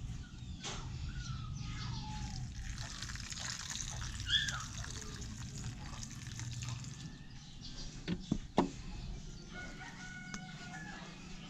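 Roosters crowing and chickens clucking, short pitched calls coming and going, with two sharp knocks about eight seconds in.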